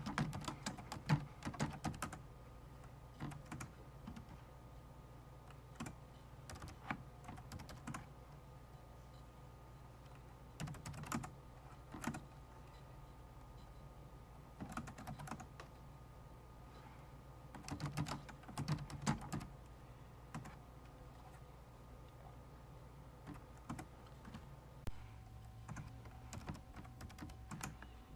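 Typing on a computer keyboard: short runs of keystrokes broken by pauses, about seven bursts in all.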